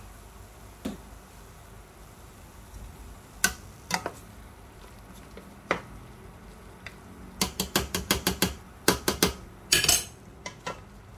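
A metal spoon clinks and scrapes against a stainless steel pot as thick apple pie filling is stirred. There are a few scattered taps, then a quick run of clinks about two-thirds through, and a longer scrape near the end.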